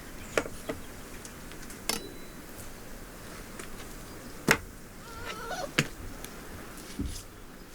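About six short, sharp knocks and clicks at irregular intervals over a quiet background, with a faint wavering chirp a little after the middle.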